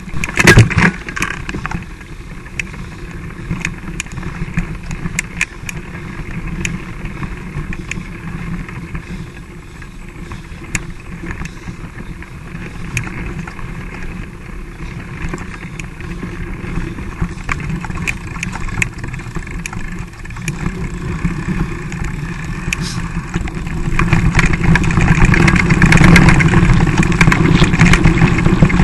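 Mountain bike ridden over a dirt trail, heard from a camera on the bike: a steady rush of wind and tyre noise with frequent clicks and rattles of the frame and chain. It grows louder and rougher near the end.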